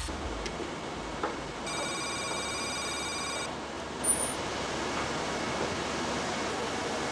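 A telephone rings once, a trilling electronic ring lasting about two seconds, over a steady background hiss.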